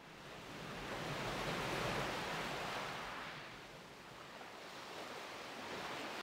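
A rushing noise like surf washing in: it swells to its loudest about two seconds in, ebbs, then holds until it cuts off suddenly at the end.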